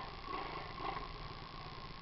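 A small engine running faintly, swelling and easing in uneven surges.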